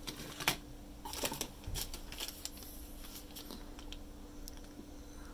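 Crinkling and rustling of clear plastic packaging as a bagged model container kit is picked up and handled, in a string of short irregular crackles.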